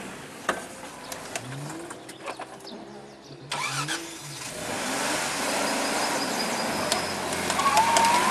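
Off-road trial car's engine revving up and down as it works through a section, with scattered knocks. The sound gets suddenly louder about halfway through and keeps building.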